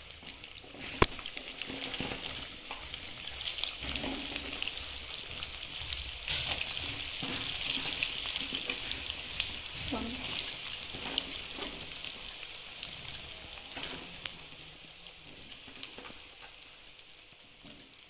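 Hot spiced oil in a pan sizzling and crackling as pieces of jackfruit and mango are dropped in by hand for pickle. The sizzle swells through the middle and dies down toward the end. A single sharp click comes about a second in.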